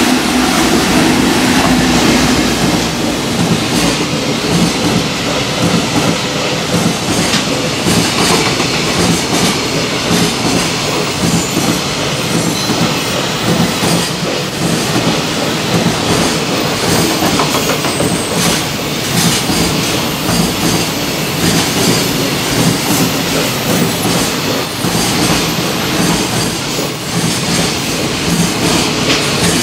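EF210 electric locomotive hauling a long container freight train past at speed: the locomotive goes by in the first few seconds, then a long run of container wagons follows with their wheels clattering steadily over the rail joints.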